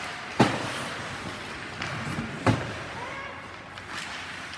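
Two sharp, echoing bangs from ice hockey play, about two seconds apart, over a steady rink background with faint distant shouts.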